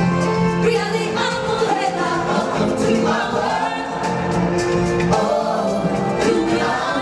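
A choir of voices singing a song over musical accompaniment.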